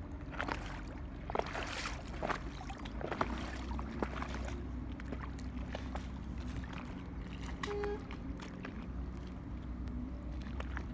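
Water lapping and trickling against the hull of a small boat, with scattered small splashes over a low steady rumble.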